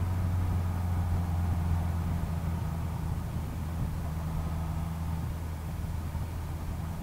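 2016 Honda CBR650F's inline-four engine running steadily as the motorcycle cruises, with an even hiss of wind and road noise over the low hum.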